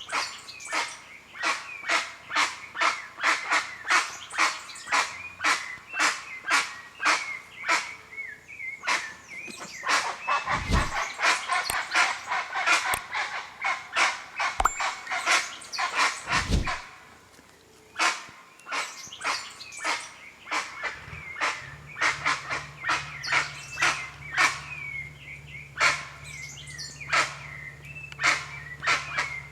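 Guans (jacu) calling: a rapid series of loud, harsh, bark-like calls, about two to three a second, crowding together in the middle with a brief pause about two-thirds of the way through.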